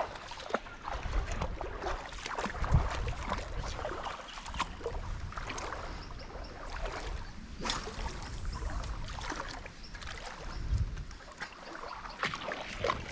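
Irregular small clicks and rustling, with two dull low thumps, as of gear being handled close by.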